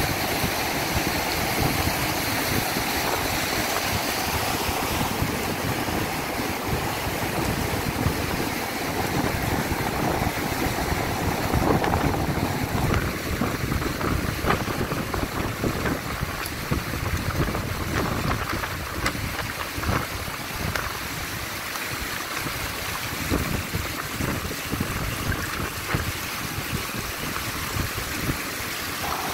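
Fast, shallow stream rushing over stones, a steady rush of water, with wind gusting on the microphone. The rush thins a little about halfway through.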